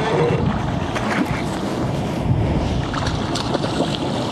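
Wind rumbling on the microphone over water sloshing against a boat, with a few light knocks.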